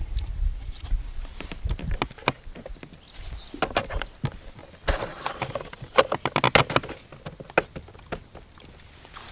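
Light wooden clicks and knocks from a wooden pochade painting box being handled as a painting panel is fitted and clamped into the holder in its lid, in clusters about four seconds in and again between five and seven seconds.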